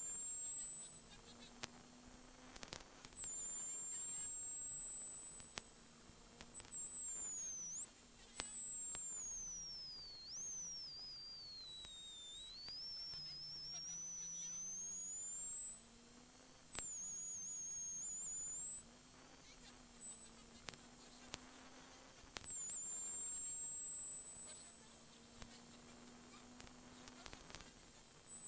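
Peugeot 106 XSI rally car at speed, heard from inside the cockpit: the engine runs at high revs with a thin high whine that follows them, with short knocks now and then. The revs drop for a few seconds around the middle, then build again.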